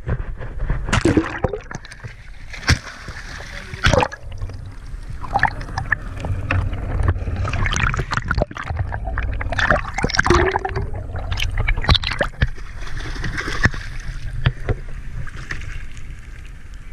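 Water sloshing and splashing around a camera held at the waterline against a boat hull, with sharp knocks scattered throughout and a steady low rumble underneath.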